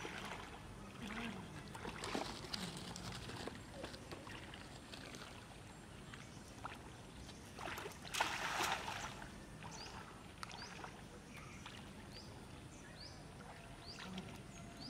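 Feet wading and sloshing through shallow floodwater, then a cast net thrown and landing on the water with a splash about eight seconds in, the loudest sound; quieter sloshing follows as the net line is drawn in.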